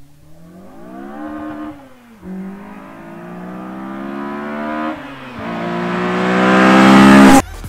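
Acura RSX Type-S's 2.0-litre K20 four-cylinder engine accelerating hard up through the gears as the car approaches. The pitch climbs, drops at two upshifts and climbs again, getting louder with each pull, then cuts off abruptly just before the end.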